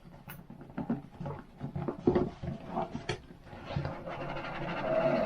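Cardboard packaging being handled while the box holding the drone's controller is opened: scattered light taps and clicks, then a longer sliding rub, as of something pulled out of a snug box, building near the end.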